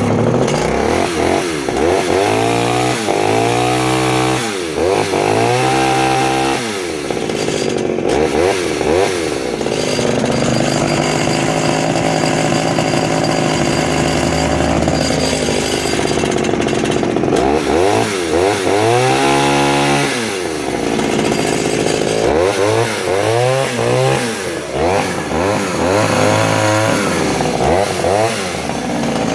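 Vintage 1970s Pioneer P20 51cc two-stroke chainsaw running, revved up and down over and over, with a steady spell at high revs near the middle. The owner judges its carburettor needle setting slightly rich.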